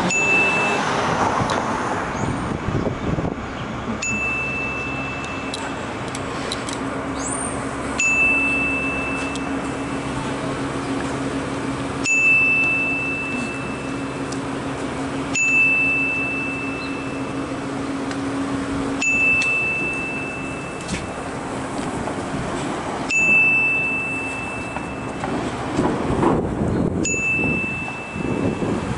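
A single high steady electronic tone, each about a second and a half long and starting with a short tick, repeating about every four seconds over steady street noise.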